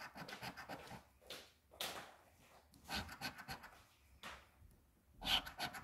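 A coin scraping the latex coating off a scratch-off lottery ticket in a series of short strokes, in clusters with brief pauses, with a louder run of strokes near the end.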